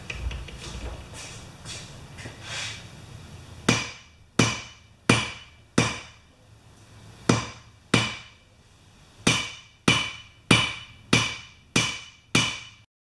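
Hammer striking metal on an anvil to flatten a bent steel washer: about a dozen sharp, ringing blows in quick runs of roughly one to two a second, with brief pauses between runs. A few lighter taps come before them.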